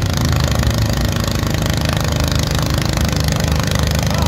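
Garden pulling tractor's engine idling steadily while hitched to the pulling sled, not yet under load.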